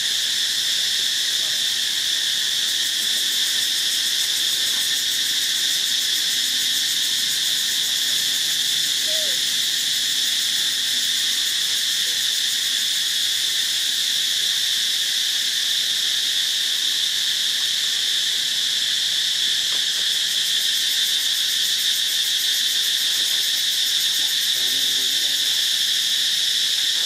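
Steady, unbroken high-pitched insect chorus, a constant shrill with no pauses or changes in level.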